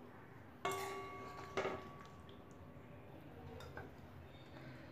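A metal utensil clinks against a metal kadai with a short ringing note, then knocks once more about a second later, as curry is scooped out to be served.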